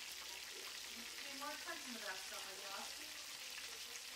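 Floured chicken breasts shallow-frying in vegetable oil in a cast iron skillet: a steady sizzle.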